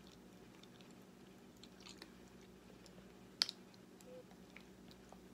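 Faint crackling and clicking from hands handling plastic and tape, with one sharp click about three and a half seconds in.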